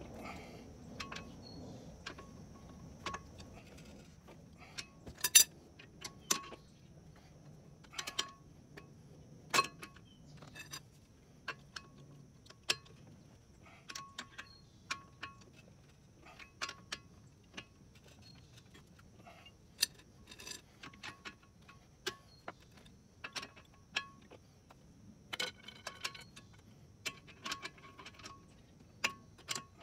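Irregular metallic clicks and clinks from a socket wrench and breaker bar working the lug nuts on a bare front wheel hub, now and then in quick runs of ratchet clicks.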